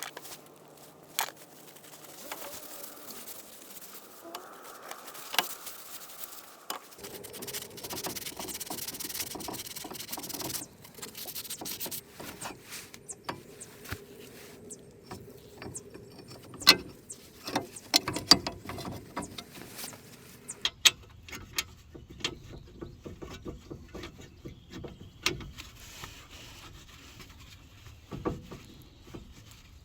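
Hand-tool work on a car's front suspension: irregular metallic clicks, rattles and knocks, with several sharp strikes in the middle and a steady hum running underneath for a while.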